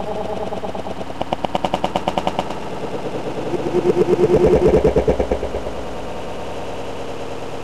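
An engine running with a rapid, rattling beat of about ten pulses a second. It swells louder twice.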